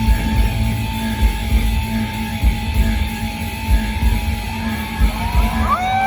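Instrumental post-rock band playing live at concert volume: a steady drum beat under sustained electric guitar tones, with a held note that slides upward near the end.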